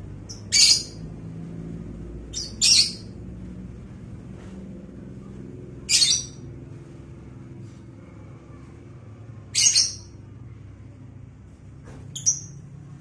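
A caged lovebird giving short, high-pitched calls, about five of them, spaced a few seconds apart.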